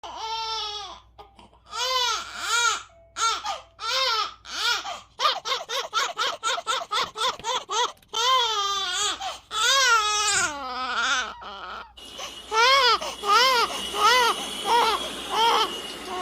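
A 50-day-old baby crying in a series of short, arching wails, with a quick run of short cries in the middle. About twelve seconds in, a steady white-noise hiss starts under the crying, which goes on.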